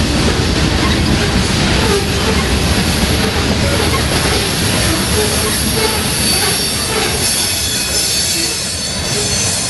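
Freight train of covered hopper cars rolling past: steady rumble and rattle of steel wheels on the rails, with a thin high wheel squeal joining in about halfway through.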